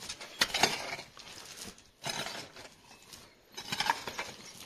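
A hand mattock striking and scraping into dry, gravelly soil and stones, a few irregular chopping blows.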